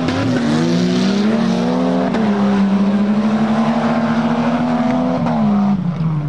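Four-wheel-drive competition truck's engine revving hard and held at high revs for several seconds, then dropping off about five seconds in.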